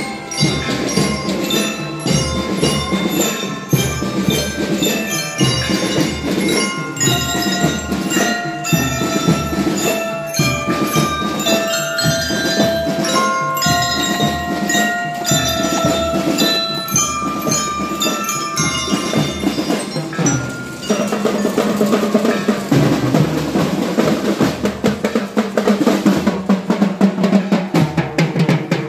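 Drum and lyre band playing: bell lyres and a metal-bar mallet instrument ring out a struck melody over marching drums. About two-thirds of the way through the melody stops and the drums carry on alone.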